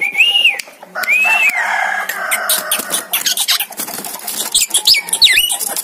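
Javan myna (jalak kebo) calling: two arched whistled notes, then fast chattering with clicks and quick up-and-down sweeping notes.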